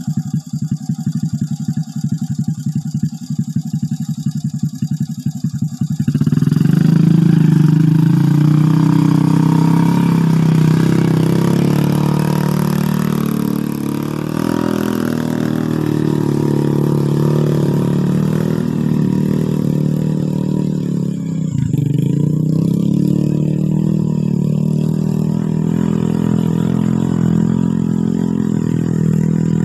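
Off-road motorcycle engine running with a fast low putter, then revved up suddenly about six seconds in and held at high revs, its pitch wavering, with one brief drop about two-thirds of the way through.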